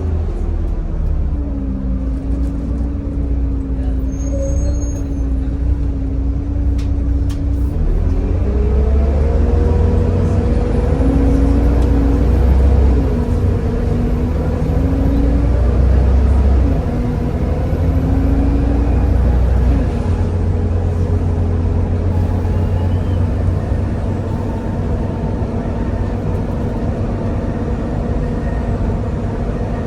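Volvo B7TL double-decker bus's six-cylinder D7C diesel and ZF gearbox under way, with a deep engine drone under a vacuum-cleaner-like whine that earns it the nickname "Hoover". About eight seconds in, the whine climbs sharply in pitch, then holds steady as the bus runs at speed.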